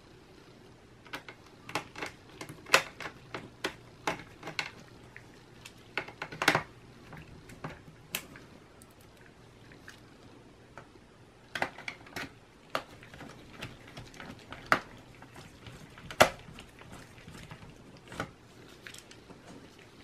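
Scattered sharp clicks and taps of a mini Phillips screwdriver and gloved fingers on the plastic underside of a Dell Latitude E6530 laptop. The clicks come in irregular clusters, with a lull in the middle.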